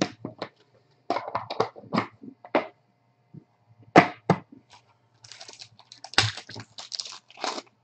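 A string of sharp clicks and taps as trading cards and hard plastic card holders are handled and set down on an aluminium briefcase, the loudest about four seconds in, followed by a couple of seconds of rustling as a plastic one-touch holder is handled.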